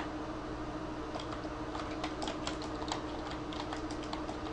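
Computer keyboard keys clicking in quick, uneven runs as a web address is typed, over a steady low hum.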